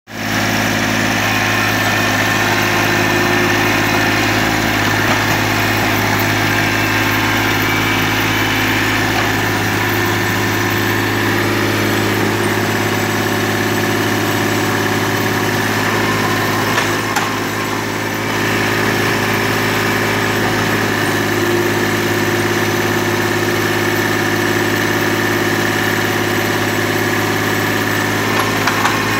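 Mini excavator's diesel engine running steadily as it digs, dipping briefly in level a little past halfway.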